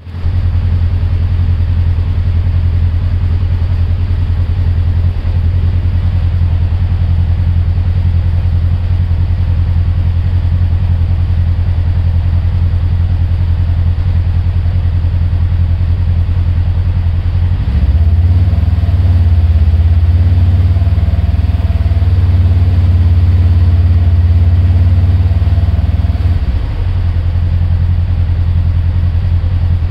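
Polaris General XP4 1000's parallel-twin engine idling steadily while parked. For several seconds in the middle the sound grows a little louder and a wavering higher whine joins it, then it settles back to plain idle.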